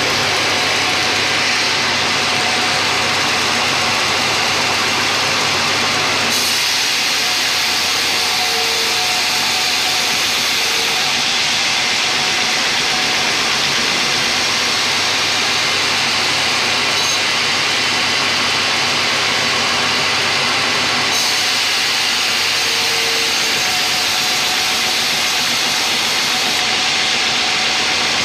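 Sawmill band saw running steadily as it cuts lengthwise through a teak log.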